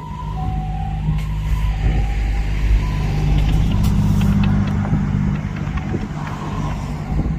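Ambulance two-tone siren alternating between a high and a low note, clear for the first couple of seconds and then faint, over the steady running of a vehicle engine that grows louder around the middle.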